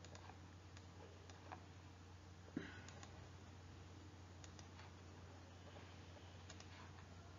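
Near silence: room tone with a steady low hum and a few faint clicks, the clearest about two and a half seconds in.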